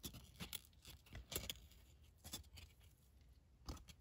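Faint rustles and clicks of glossy cardboard trading cards being slid and shuffled one behind another in the hands, a scatter of short swishes and ticks.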